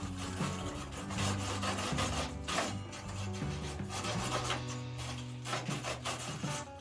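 Steady scratchy rubbing of a wire brush scrubbing steel welds, over background music with a low bassline.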